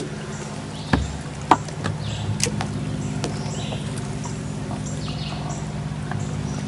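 A steady low hum runs throughout, with a few sharp knocks in the first two and a half seconds and scattered brief scratchy rustles.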